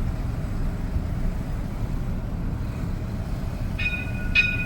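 Steady low rumble of engines and heavy machinery at street works. A little before the end a steady high-pitched tone starts, with regular clicks about twice a second.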